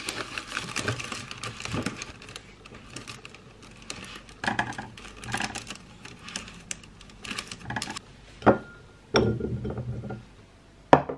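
Hands handling a plastic fruit punnet, with small clicks and crinkles as dark fruit is dropped piece by piece into a metal mesh sieve. Near the end come a few sharper knocks and a rattle as the fruit is tipped from the sieve into a glass bowl.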